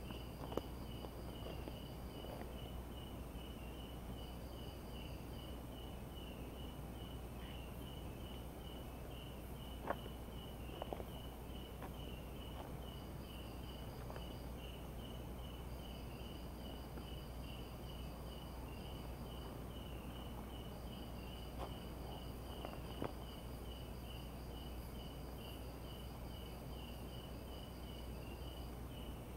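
Night insects chorusing, mainly crickets. One chirps steadily at about four pulses a second, while a higher, faster trill starts and stops several times over a constant high whine. A few short sharp clicks break in, about half a second in, near ten seconds and again near twenty-three seconds.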